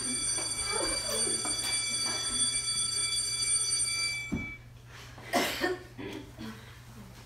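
A steady, high electronic ringing tone holds for about four seconds and then cuts off. A low thud and a short, sharp rush of noise, like a quick breath, follow.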